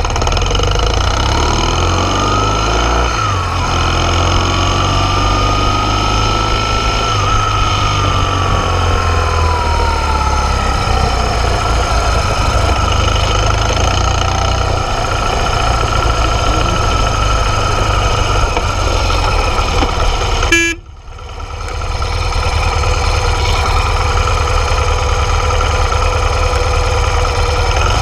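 BMW R 1200 GS's boxer twin engine running at low speed. A drawn-out tone rises and then slowly falls over several seconds, and the sound drops out suddenly for about a second about two-thirds of the way through.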